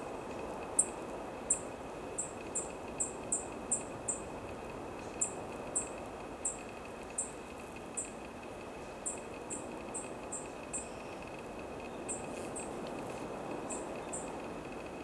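Black-faced bunting giving short, high single call notes over and over at irregular intervals, about one or two a second, sometimes two in quick succession.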